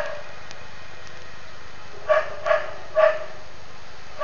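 A dog barking in short sharp barks: one at the start, then three in quick succession about two seconds in.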